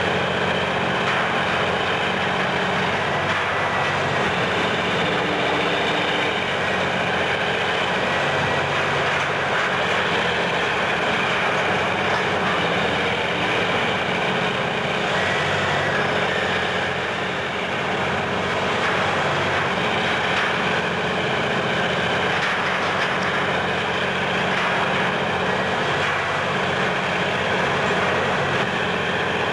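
Heavy diesel engine of a Menck cable-operated crawler crane running steadily, a continuous low drone.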